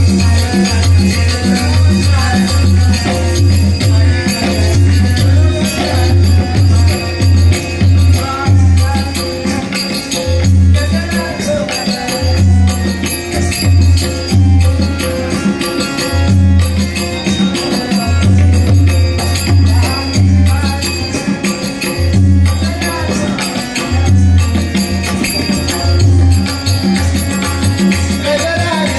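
Loud folk music with a heavy, repeating low beat and jingling percussion, with no speech.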